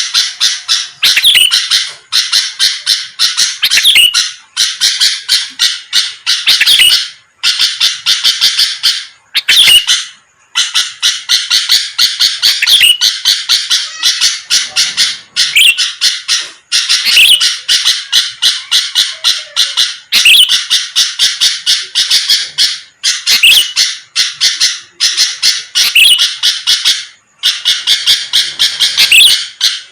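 Sooty-headed bulbul (kutilang) singing hard and without pause: rapid runs of harsh chattering notes in phrases of one to two seconds with short breaks between them, loud and close, the kind of vigorous 'gacor' song used as a lure to make other bulbuls answer.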